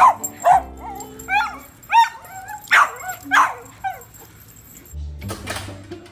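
A small dog yipping and barking in quick high yelps, about eight in four seconds, over background music; the barking stops near the end and the music goes on alone.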